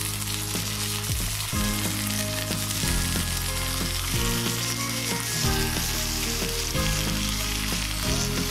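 Beef steaks sizzling steadily as they fry in butter in a pan, just turned over, with a slotted spatula pressing and moving the meat. Low background music runs underneath.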